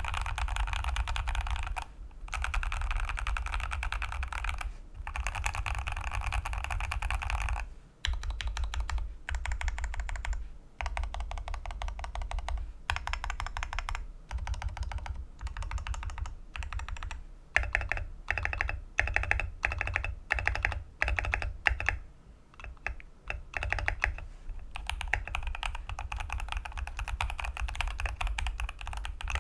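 Stock, almost unmodded Keychron V1 mechanical keyboard being typed on. Fast runs of typing are broken by short pauses. In the middle there are slower stretches of separate keystrokes and short bursts.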